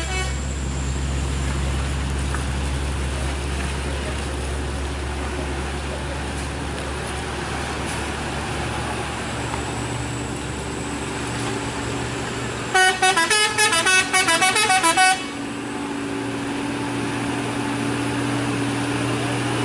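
A loaded Hino truck's diesel engine runs steadily under load, climbing a steep wet hairpin. About 13 seconds in, a vehicle horn gives a quick series of toots lasting about two seconds, louder than the engine.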